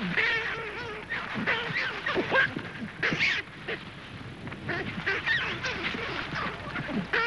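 A troop of baboons giving many overlapping, wavering cries during a chase and fight over rank.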